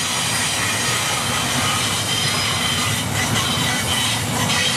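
Double-stack container cars of a Canadian National freight train rolling past at close range: a steady rumble of steel wheels on rail, with thin high-pitched squealing tones riding over it.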